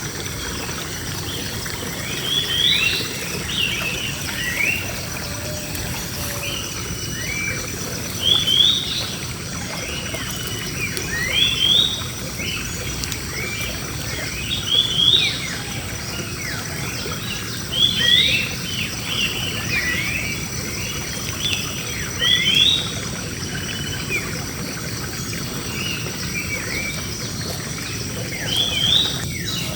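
Several birds singing in a large tree: short, chirpy phrases come in clusters roughly every three seconds. Under them run a steady hiss and a thin, steady high tone.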